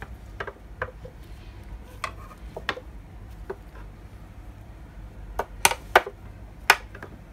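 Scattered light clicks and taps of a plastic-coated wire coat hanger being bent and handled by hand, the sharpest few coming about five and a half to seven seconds in, over a low steady hum.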